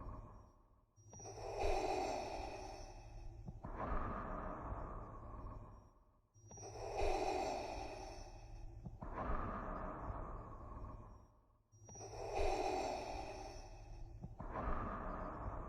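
Darth Vader's respirator breathing sound effect: slow, mechanical breaths through the mask, each one a two-part breath in and out. It repeats evenly about every five and a half seconds, with a brief near-silent gap between breaths, about three full breaths in all, over a faint low hum.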